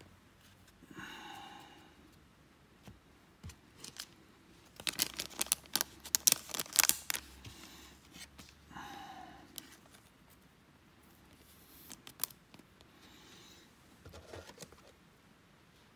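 Clear plastic trading-card pack wrapper crinkling and crackling as it is torn open and peeled away, loudest for a couple of seconds about five seconds in. Scattered softer clicks and rustles of baseball cards being handled and shuffled through come before and after.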